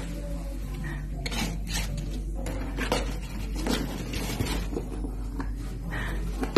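Light clicks and scraping at irregular intervals as a baby armadillo is handled in a cardboard box, its claws and the hand rubbing on the cardboard, over a steady low hum.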